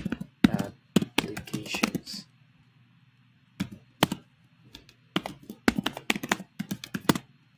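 Typing on a computer keyboard: a quick run of keystrokes in the first two seconds, a couple of single key presses around four seconds in, then another run of keystrokes near the end.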